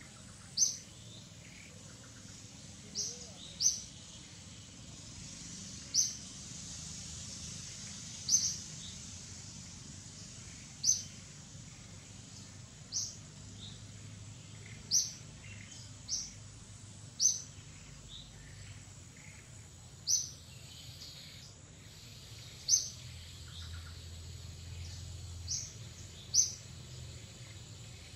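A bird repeating a short, high chirp that rises in pitch, about fourteen times, one to three seconds apart, over faint steady forest background noise.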